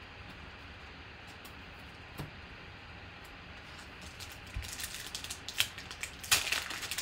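The foil wrapper of a trading card pack crinkles and crackles as it is handled and torn open. It starts about four and a half seconds in and grows louder near the end, after a few seconds of low hiss.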